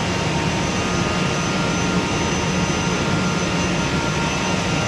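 Woodworking shop machinery running steadily: a loud, even roar with a low drone and a few faint steady whines above it.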